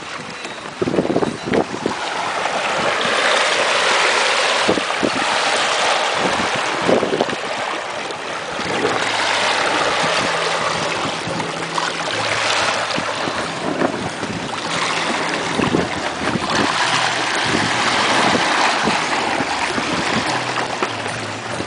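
Water rushing and splashing along the hull of a boat under way, swelling and easing every few seconds, with wind buffeting the microphone. A few sharp knocks in the first couple of seconds.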